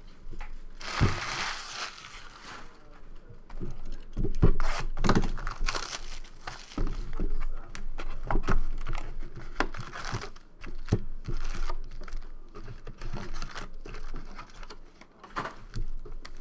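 Packaging of a box of 2014 Bowman Jumbo baseball cards being torn open and its pack wrappers crinkled by hand, with irregular rustling and a stronger spell of tearing and crinkling about a second in. Sharp clicks and taps from handling run through it.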